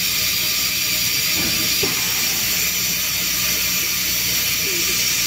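A loud, steady hiss of rushing air, strongest in the high pitches over a low hum, unchanging throughout.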